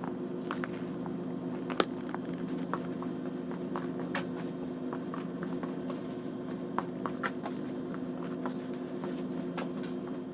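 A steady low electrical-sounding hum with light clicks and taps scattered through it, one slightly sharper click about two seconds in.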